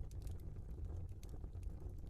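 Logs burning in a fireplace: a steady low rumble of flames with irregular sharp crackles and pops.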